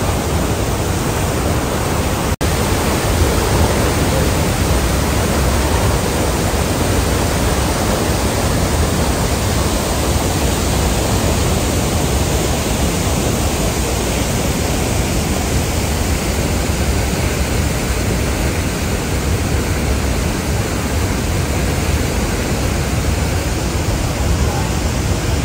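Steady, loud rush of water from the Iguazú Falls cascades and the whitewater rapids below them, an unbroken noise with no rhythm or tone.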